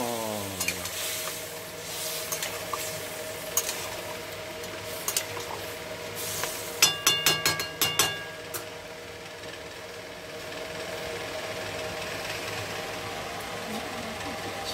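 Fish curry simmering and sizzling in an aluminium kadai while a metal spatula stirs it, giving scattered scrapes and clicks. About halfway through comes a quick run of about eight sharp, ringing metal taps of the spatula against the pan.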